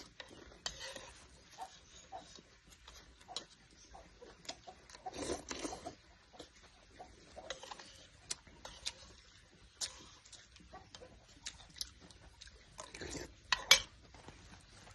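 Dishes and utensils clinking and tapping in scattered light knocks, the loudest a cluster near the end.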